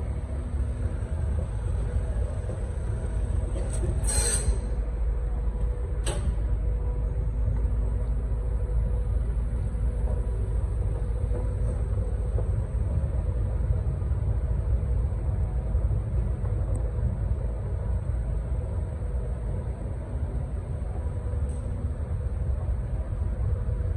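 Schindler 9300 escalator running under a rider: a steady low rumble with a faint hum, a short sharp rattle about four seconds in and a single click about two seconds later.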